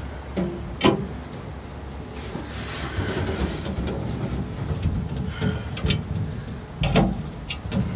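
Metal smoking-dust tray at the base of a smokehouse being slid and handled, a scraping slide with two sharp metal knocks, one about a second in and one near the end.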